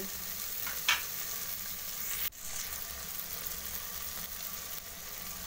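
Onions, chillies and freshly added tomatoes sizzling steadily in hot oil in an aluminium pressure cooker, with a short tap about a second in.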